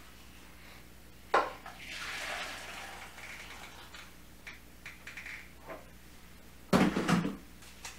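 Cooking liquid poured out of a Monsieur Cuisine kitchen machine's stainless-steel mixing bowl into a plastic bowl, a splashing pour that trails off. A sharp knock comes just before the pour, and a louder clatter near the end as the steel bowl is set back onto the machine's base.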